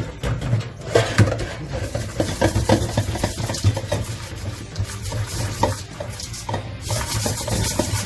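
Raw makchang being rubbed and kneaded by hand with flour and coarse salt in a bowl at a stainless steel sink, to clean it: irregular rubbing and knocks of the bowl against the sink over a steady low hum.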